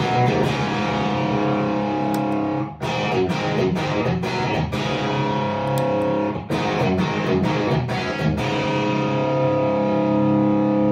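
Electric guitar playing overdriven chords that ring out and are restruck every couple of seconds, through a Fat Monday overdrive pedal on its middle voicing with drive and volume at noon, stacked with a Wolf Cub clean volume boost, into a Marshall tube amp.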